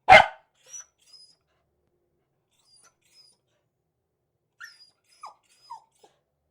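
Beagle giving one loud, sharp bark, followed by a few faint, short whines with falling pitch over the next seconds.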